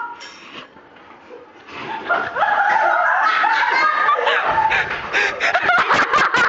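Several girls laughing and squealing after a short lull, reacting to mouthfuls of ground cinnamon; the laughter turns into rapid, choppy bursts in the last couple of seconds.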